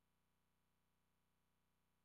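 Near silence: only a faint, steady noise floor.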